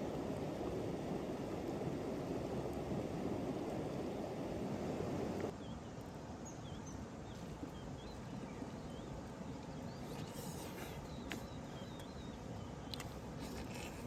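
Steady rush of flowing river water. About five and a half seconds in, it cuts suddenly to a quieter background with faint bird chirps and a few sharp clicks near the end.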